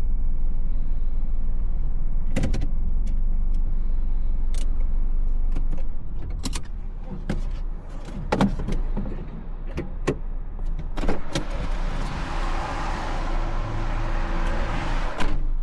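Sounds from inside a car: a steady low engine rumble that drops away about six seconds in, with a run of sharp clicks and knocks. Near the end, a steady hiss lasts a few seconds and then cuts off suddenly.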